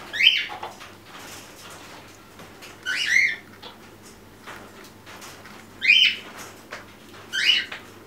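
Pet parrot giving four short chirping calls, spaced a second and a half to three seconds apart.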